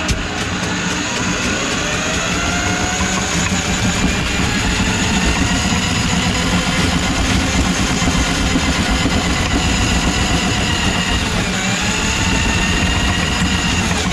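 Electric drum drain-cleaning machine running, its motor and spinning drum turning the cable in a kitchen drain line plugged with grease. The steady motor tone wavers in pitch, dipping briefly near the end and then recovering.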